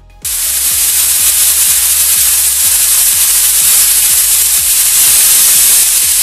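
Aluminium stovetop pressure cooker whistling: a loud, steady hiss of steam jetting out past the lifted weight valve, starting suddenly a moment in. It signals that the cooker has reached full pressure, one of the whistles counted while boiling potatoes.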